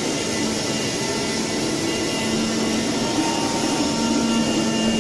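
CNC oscillating-knife leather cutting machine running a cut. Its vacuum hold-down blower gives a steady rush, and a steady hum grows stronger about two seconds in.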